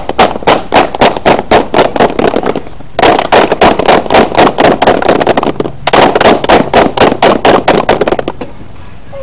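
A group of people clapping their hands fast and in rhythm, about five or six claps a second. The clapping comes in three runs of two to three seconds each, with short pauses between them.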